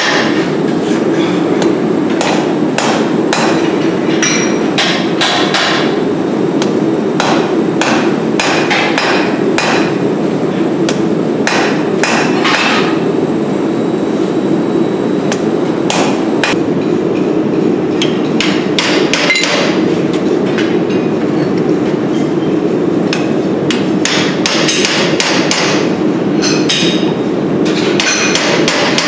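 Hand-hammer blows on hot steel over an anvil, struck irregularly and sometimes in quick runs, ringing sharply as the steel is forged. A steady low rushing noise runs underneath.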